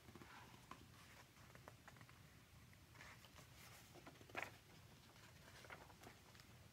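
Faint rustling and soft flicks of paper pages being turned in a paperback picture book, with one slightly louder page rustle about four and a half seconds in.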